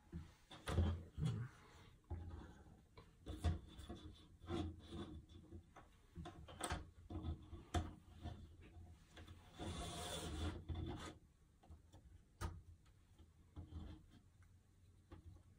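Paperboard jigsaw puzzle pieces slid and rubbed across a tabletop, with light clicks as pieces are picked up, set down and pressed together; a longer scraping slide about ten seconds in.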